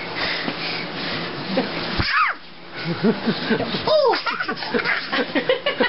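A small child squealing and giggling in short rising and falling cries, over rustling and knocks from the camera being handled close up.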